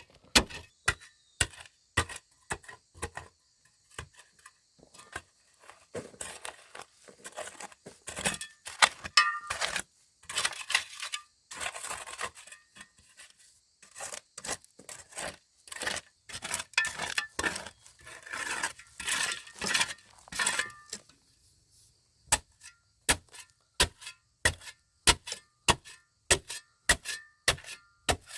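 A long series of sharp knocks and taps from hand work. A busier stretch of scraping and clinking with brief ringing runs through the middle, then evenly spaced knocks about two a second near the end.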